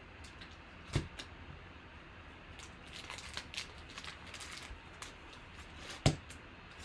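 Trading cards being handled on a table: faint rustling and small clicks, with two sharp taps, about a second in and near the end.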